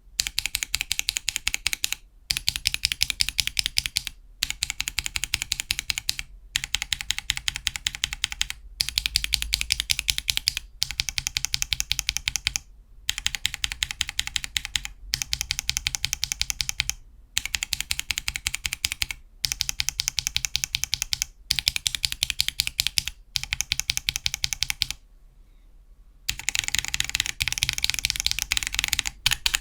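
Fast typing on a 50% custom mechanical keyboard fitted with tactile switches (Holy Panda and Everglide Dark Jade), a dense stream of key clacks in about a dozen runs of roughly two seconds each, separated by brief pauses, with a longer pause near the end.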